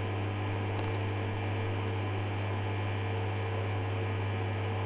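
Hoover DYN11146PG washing machine humming steadily during its cotton rinse cycle, a low electrical hum with a faint rushing hiss.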